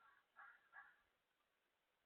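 Faint bird calls: two short calls in the first second.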